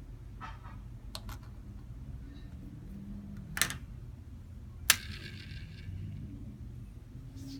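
A few sharp clicks and taps over a low steady hum; the two loudest come about three and a half and five seconds in, the second with a brief ring after it.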